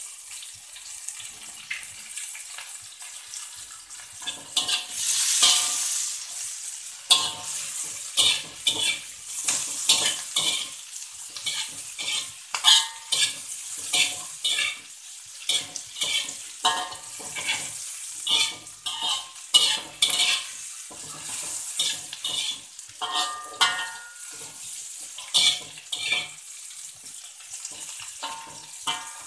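Aromatics sizzling in hot oil in a steel wok, with a metal spatula scraping and clattering against the wok in repeated stirring strokes. The sizzle is heard alone at first; the stirring strokes start about four seconds in, one or two a second.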